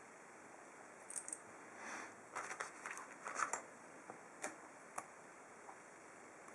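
Small metal padlock parts and hand tools being handled while the lock is taken apart: a scatter of light clicks and clatter with a brief rustle, ending in two sharp clicks.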